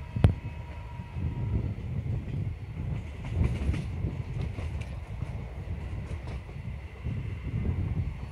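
Train running along the track, heard from on board: a steady low rumble of wheels on rail, with clickety-clack over the rail joints. One sharp, loud clack comes just after the start.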